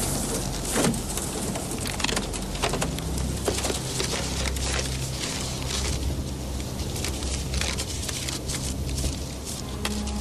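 Steady low hum inside a car, with rain pattering and ticking on the bodywork. Paper riffles as a wad of banknotes is flicked through.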